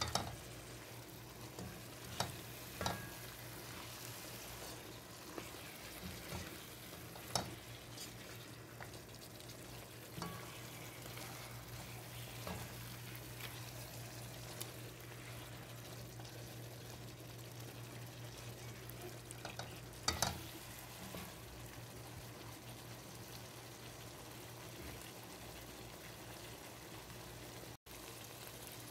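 Mutton curry sizzling as it fries in a pan while it is stirred, with occasional knocks of the utensil against the pan, the loudest about 20 seconds in.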